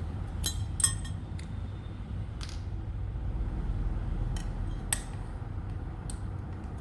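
Small metal reel parts, the handle-knob screw and knob hardware, clinking and tapping as they are handled during reassembly of a spinning reel's handle. There are about seven sharp, ringing clicks at irregular intervals, the strongest in the first second.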